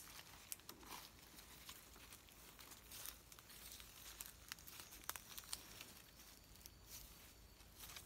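Faint rustling and crackling of dry leaves and undergrowth as a person walks slowly through brush and pushes past plants, with scattered small snaps.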